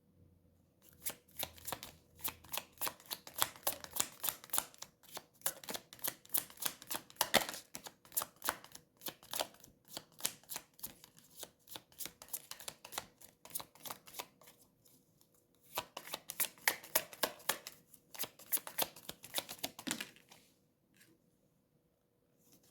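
A deck of tarot cards being shuffled by hand: a fast, dense patter of card clicks, with a short pause about two-thirds of the way through, stopping near the end.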